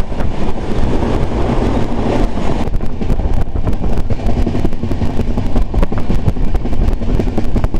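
Express train running at speed, heard from the coach window: a steady rumble with a dense clatter of wheels on rail and air rushing past. It is fuller for the first couple of seconds while a freight wagon passes close by on the next track.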